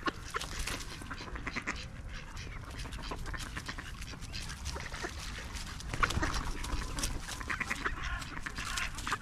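Ducks quacking and chattering in quick runs of short calls, busiest about six seconds in.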